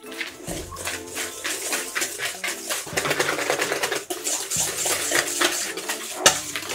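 Wire balloon whisk beating cream cheese and sugar in a stainless steel bowl: fast, rhythmic clinking and scraping of the wires against the metal, growing louder about halfway through, with a few sharper knocks near the end.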